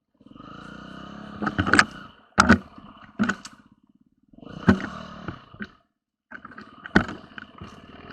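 Enduro motorcycle engine running, with several loud clattering knocks over it. The sound cuts out twice, briefly.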